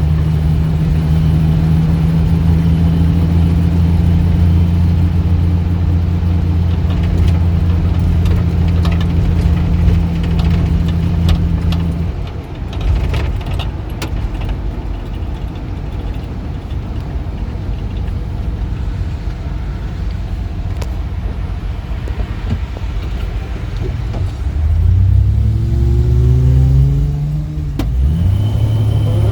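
1949 Rover P3's engine running at a steady note under way, easing off about twelve seconds in. Near the end it revs up through a gear: the pitch rises, drops at a gear change, then rises again.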